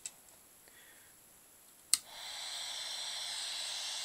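High-voltage arc from a small CRT TV's flyback transformer: a sharp snap as it strikes about two seconds in, then a steady hiss as the arc holds.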